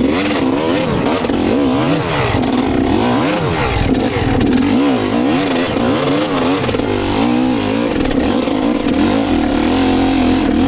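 GasGas EC250 two-stroke enduro motorcycle engine being ridden. Its pitch rises and falls over and over as the throttle is opened and closed.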